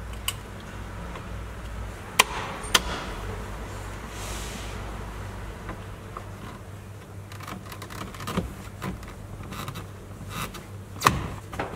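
Scattered sharp plastic clicks and knocks as hands handle car interior trim and wiring connectors, over a low steady hum; the loudest knock comes near the end.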